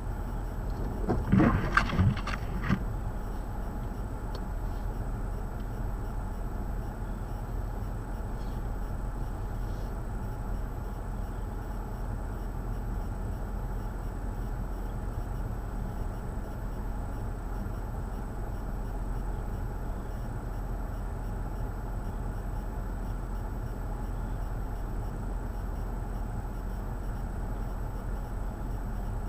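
Steady low outdoor rumble of wind and distant traffic during a snowstorm. Between about one and three seconds in comes a short cluster of several louder, sharp sounds.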